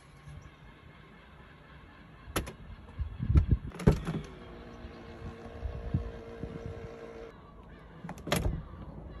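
Mercedes-Benz S-Class W220 Keyless-Go door handles being pulled: a sharp click, then a few clunks from the front handle and door lock. A steady motor hum runs for about three seconds as the car unlocks, and there are more clicks near the end from the rear door handle.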